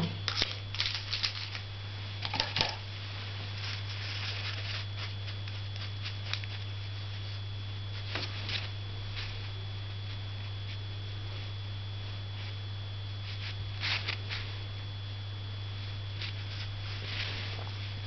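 Soft, scattered rustles and taps of hands working on paper, with a louder cluster about fourteen seconds in, over a steady low electrical hum and a faint high whine.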